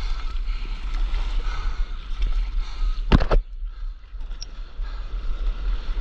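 Sea water sloshing and lapping against a camera at the water's surface during a surf paddle-out, over a steady low rumble, with one sharp splash about three seconds in.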